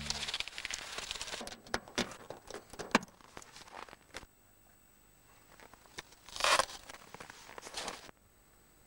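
Scattered clicks, knocks and rustling as a car battery and its cables are handled on a plastic pulk sled in snow, with a louder rustle about six and a half seconds in.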